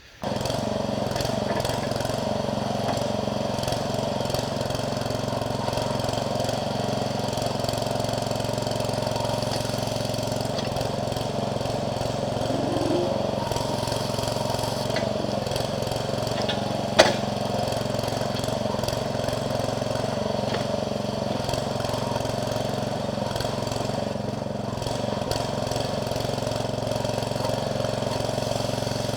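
Jansen MB 300 towable backhoe's small engine running steadily as the machine digs, with one sharp knock about seventeen seconds in.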